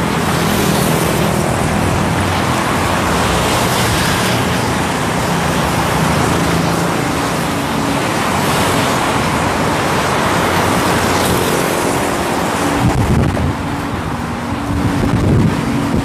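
Strong wind of an approaching storm blowing over the microphone: a loud, steady rush, turning gustier near the end.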